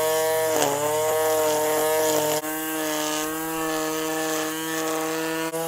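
Ryobi Easy Edge 18 V cordless string trimmer running, its electric motor and spinning line giving a steady whine while it edges grass along a sidewalk. The pitch dips briefly about half a second in, and the sound turns slightly quieter about two and a half seconds in.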